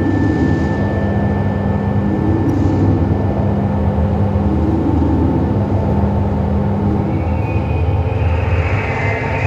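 Loud experimental electronic noise from a live radio and noise set played over PA speakers: a dense low drone with steady hum tones, a thin high steady tone entering right at the start, and a brighter hissing band coming in about seven seconds in.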